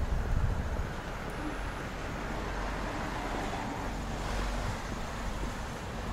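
Wind rumbling on the microphone over the noise of road traffic, with a broad swell of noise about halfway through.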